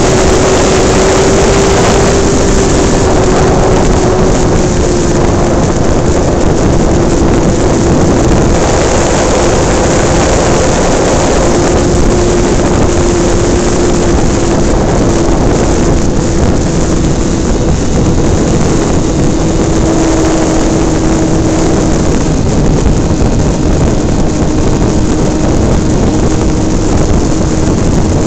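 Onboard sound of a radio-controlled airplane in flight: heavy wind rush over the microphone, with the steady drone of its motor and propeller, whose pitch eases slightly lower over the stretch.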